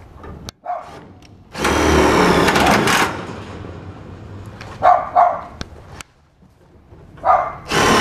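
Cordless drill driving self-drilling tek screws back into a steel fence's top rail, in two runs of about a second and a half each, the second starting near the end. A dog barks twice in the middle.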